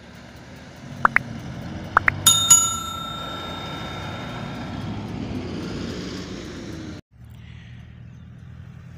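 A stopped motorcycle's engine idling steadily. About two seconds in, a couple of quick sharp strikes give a bright, bell-like metallic ring that dies away over two to three seconds. The sound cuts out for an instant near the end.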